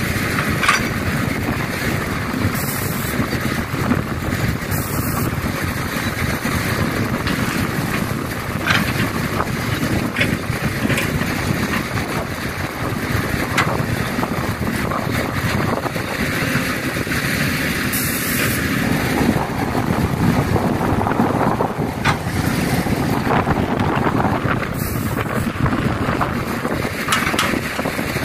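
Kobelco excavator's diesel engine running steadily as it works, with a few short knocks scattered through.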